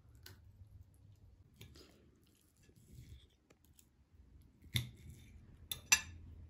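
Knife and fork clicking and scraping on a plate while cutting chicken, in scattered light taps, with two sharper clinks near the end.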